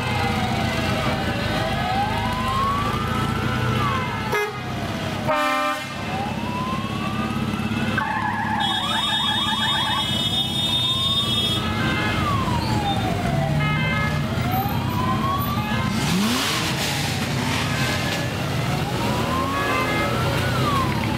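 A wailing siren, its pitch rising and falling about every four seconds, over the steady running of motorcycle and trike engines. A faster warbling tone joins for about three seconds near the middle, and an engine revs up a few seconds later.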